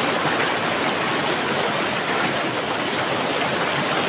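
Fast, shallow river rushing over rocks in rapids: a steady, loud rush of water.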